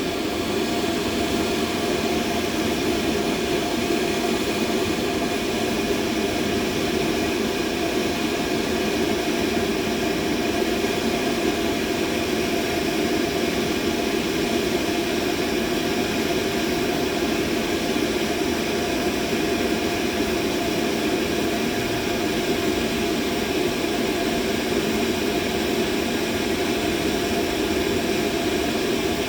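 Steady machine drone, a dense even rush with a few faint constant tones riding on top, unchanging in pitch and level, playing as a continuous masking sound.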